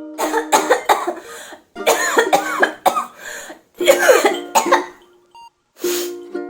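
A person coughing in several bouts of two or three coughs each, over music.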